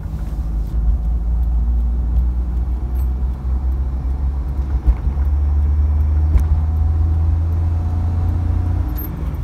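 Maruti Omni van's small three-cylinder petrol engine pulling under hard acceleration, heard from inside the cabin as a deep drone with road rumble. The engine note climbs as the van gathers speed and eases off briefly near the end.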